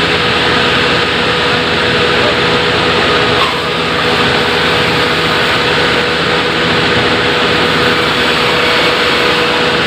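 Sawmill machinery running steadily: a loud, constant mechanical drone with a steady hum, dipping briefly about three and a half seconds in.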